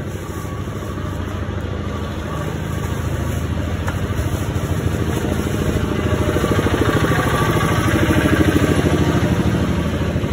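A motor vehicle engine running close by, with a steady, even firing sound. It grows louder through the middle and eases slightly near the end.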